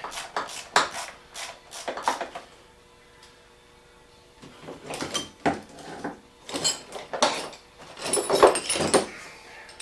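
Hand tools working on the moped's rusty metal parts in a run of short strokes. The strokes pause for about two seconds, then start again, loudest near the end.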